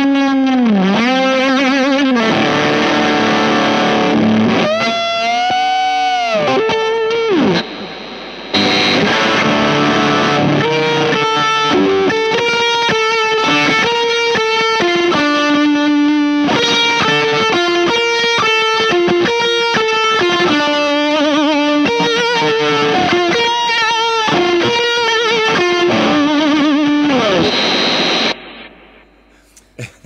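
Electric guitar, a Warmoth Strat-style, played through a Weird Noise Pedals Fuzz It fuzz pedal into a distorted amp channel: heavily fuzzed, compressed single-note lines with wide string bends. There is a short break about eight seconds in, and the playing stops shortly before the end.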